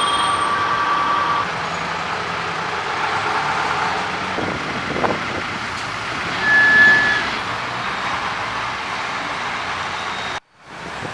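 Street traffic past road works: trucks and cars running steadily, with a steady whine in the first second or so and a short high beep about six and a half seconds in. The sound cuts out briefly near the end.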